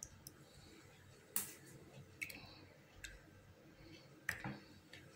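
A few faint, light clicks and taps, about four spaced roughly a second apart: a plastic spoon knocking against small paper cups and a steel bowl while turmeric indicator solution is spooned into them.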